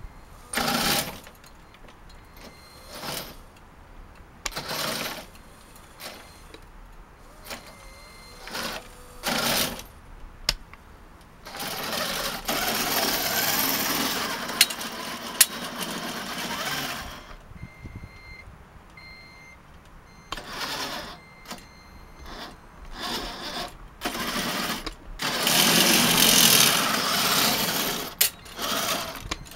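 Small electric motors and gearboxes of a radio-controlled Tonka Cranemaster cable excavator running in short bursts. There are two longer runs, one about twelve seconds in and one near the end.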